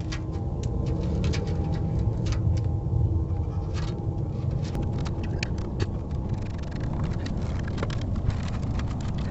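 Vehicle engine running steadily with a low rumble, with sharp irregular ticks and pops over it.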